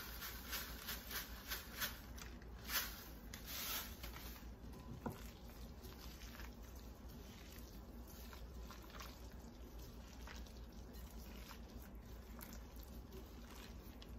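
Faint crackling of a plastic bag as crushed cracker crumbs are shaken out of it during the first few seconds. After that come soft, wet squishing sounds of gloved hands working crab meat, sauce and crumbs together in a glass bowl.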